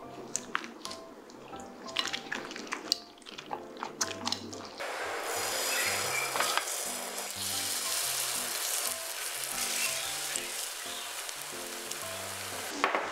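A wooden spoon stirring thick kimchi pancake batter in a glass bowl, with scattered light clicks and squelches; about five seconds in, the batter goes into hot oil in a frying pan and sizzles steadily. A sharp click comes near the end.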